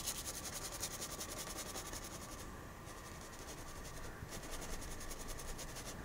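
Fan brush scrubbing oil paint onto a canvas in quick, evenly repeated strokes, a faint scratchy rubbing with short breaks about halfway.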